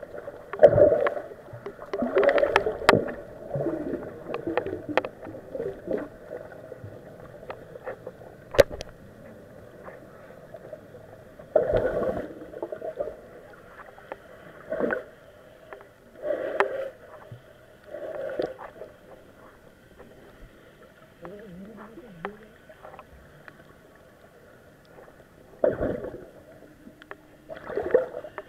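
Muffled water sloshing and bumping heard through an action camera's waterproof housing while snorkeling. It comes in irregular bursts a second or two apart, with a few sharp clicks.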